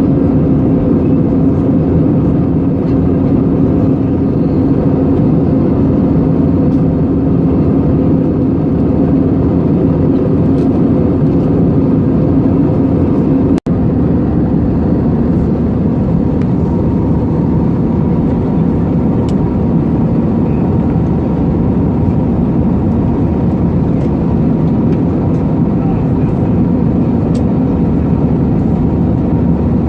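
Steady cabin drone inside an Airbus A320 airliner, the engines and airflow heard from a window seat with a low hum running through it. The sound breaks off for an instant about halfway through, after which the hum is a little weaker.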